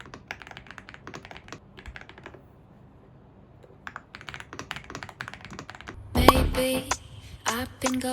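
Typing on a computer keyboard: two quick runs of key clicks with a short pause between them. About six seconds in, music comes in loudly.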